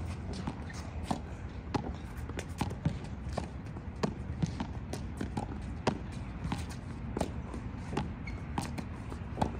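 A tennis rally against a hitting wall: repeated sharp knocks as the racket strikes an orange junior tennis ball, the ball smacks the wall and bounces on the hard court, about two to four knocks a second. A steady low rumble runs underneath.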